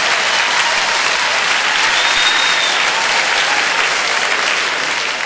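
Audience applauding in a theatre after a punchline, a dense, steady clatter of clapping that begins to fade near the end.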